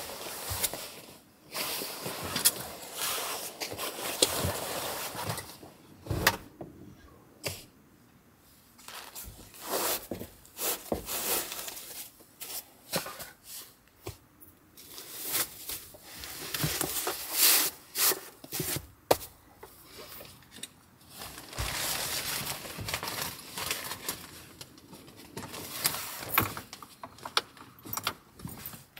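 Fabric rustling with irregular small knocks, clicks and scrapes as gear is handled and camouflage-print fabric is hung inside a small van's cargo area, broken by brief quiet gaps.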